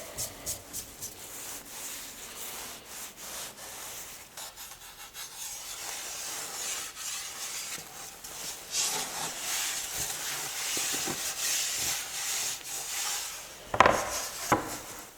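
Wood being sanded or rubbed smooth by hand, a steady scratchy back-and-forth rubbing. Two sharp knocks come near the end.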